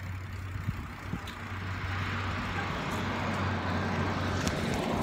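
Steady low rumble and hiss of riding a bicycle along a street, with wind on the phone's microphone, growing steadily louder.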